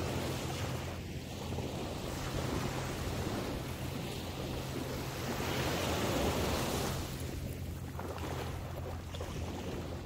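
Small ocean waves breaking and washing up onto a sandy shore in steady surf, swelling to their loudest about six seconds in and then easing.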